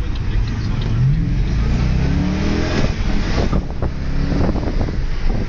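Holden Commodore SSV's V8 engine accelerating, its note rising through a gear, dropping at a gear change about three seconds in, then climbing again.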